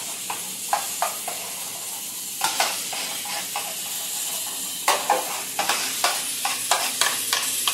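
A spoon stirring a thick mayonnaise-based sauce in an aluminium baking tray, scraping and clicking against the metal in irregular strokes that come more often in the second half, over a steady hiss.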